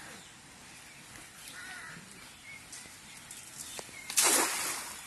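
A thrown cast net landing on pond water about four seconds in: a sudden, loud splashing rush that fades within about a second.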